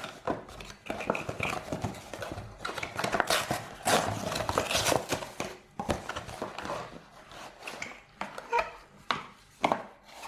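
Hands handling a small product box and its packaging: irregular rustling, crinkling and light clicks and taps.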